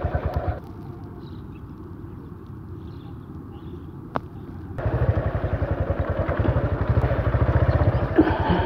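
Single-cylinder Suzuki motorcycle engine running while the bike is ridden over a dirt track, with even exhaust beats. The beats are quieter for the first few seconds and become louder from about five seconds in. A single sharp click sounds a little after four seconds in.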